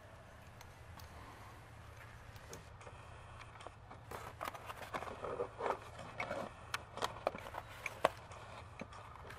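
Metal wrenches clinking and rattling as they are handled in a cloth tool roll: a string of sharp clinks starting about four seconds in, the loudest near the end, over a steady low background hum.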